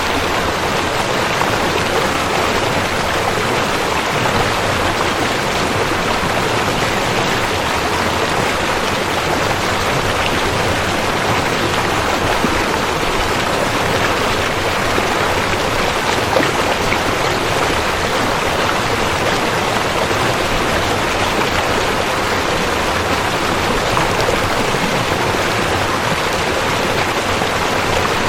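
River water flowing, a steady even rush of water with no breaks.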